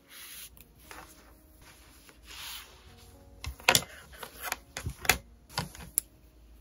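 Knitted fabric and yarn rustling as a hat in progress is handled, then a quick series of sharp clicks and knocks from the wooden knitting needles and the work being set on the table, over soft background music.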